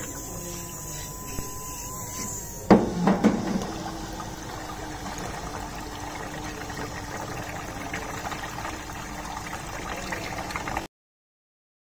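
Small portable submersible pump being tested in a scoop of water. About three seconds in there is a loud sudden splash, and then steady splashing and churning as the pump circulates the water, with a faint motor hum under it. The sound cuts off abruptly near the end.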